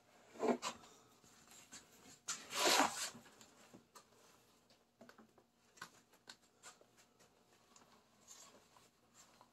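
An old vinyl door-card covering and its hardboard backing being handled on a wooden workbench: a knock about half a second in, then a louder scraping rustle as the vinyl is laid down and slid flat, followed by faint light taps.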